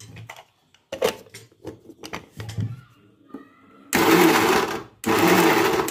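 A few clicks and knocks, then an electric mixer grinder switched on in two short pulses about a second long, grinding tomatoes, coriander, garlic and chillies into a coarse chutney.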